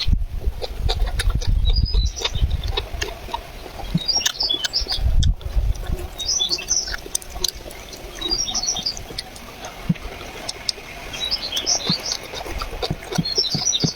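Small birds chirping in short clusters of high notes every couple of seconds, among scattered small clicks. A low rumble comes near the start and again about five seconds in.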